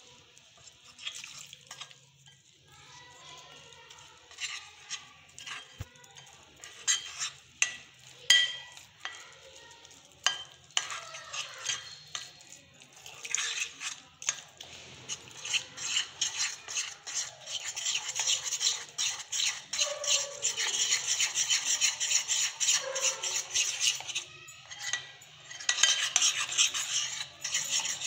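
Metal spoon stirring gram-flour and rice-flour batter in a bowl, scraping and clicking against the sides as water is worked in. The strokes are sparse at first, then become fast and continuous from about halfway, with a brief pause near the end.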